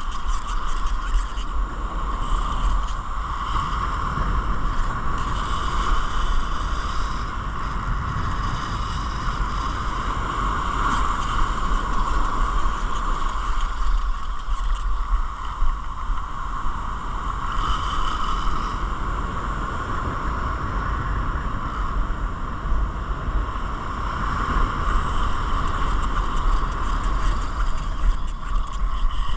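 Wind buffeting the microphone, a steady low rumble, with surf washing up the beach.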